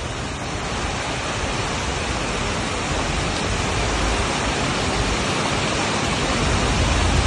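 Steady rain, an even hiss that slowly grows a little louder.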